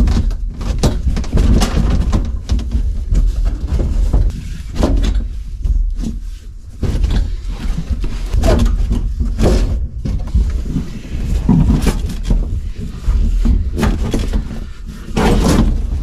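Clunks, knocks and scraping as the vinyl rear seat back of a 1968 Pontiac LeMans is unfastened and worked loose, then lifted out, over a steady low rumble.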